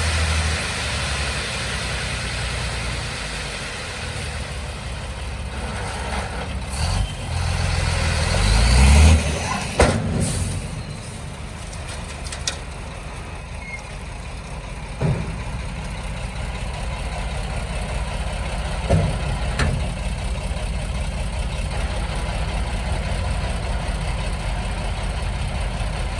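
Heavy construction-vehicle engine running steadily. It revs up with a rising pitch about eight to nine seconds in, followed by a sharp knock and a few lighter knocks later.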